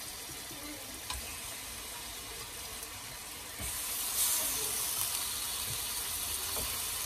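Chicken drumsticks sizzling in a pan, a steady hiss. About three and a half seconds in, a louder, brighter hiss starts and carries on.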